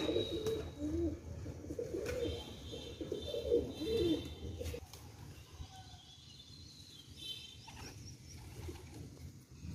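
Feral rock pigeons cooing as the flock crowds in to feed. The low cooing dies down about halfway through, and a few faint high chirps sound above it.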